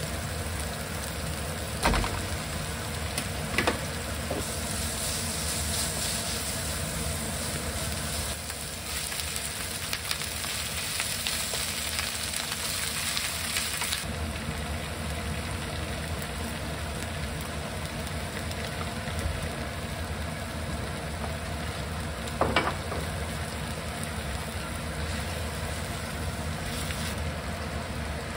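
Minced meat and spinach sizzling as they are stir-fried in a nonstick frying pan, with the sizzle louder for several seconds soon after the start. A few sharp knocks against the pan stand out above it.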